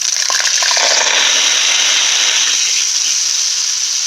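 Dry rice poured into a cardboard paper towel tube capped at the bottom with tin foil: a steady rushing patter of grains that sounds like rain, with a few distinct ticks from single grains in the first second.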